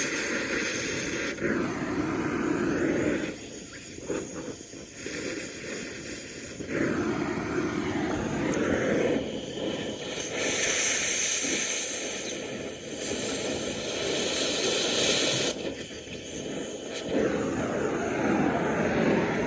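Oxy-acetylene cutting torch running with a steady hissing flame that grows louder in spells, cutting the old bearings off a drive shaft.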